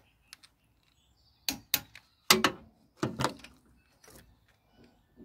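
Clicks and knocks of a wrench on the camshaft sprocket bolts of a Rover K-series twin-cam engine as they are torqued up. There is a handful of sharp clicks from about one and a half to three seconds in, the loudest a little after two seconds, with fainter ticks around them.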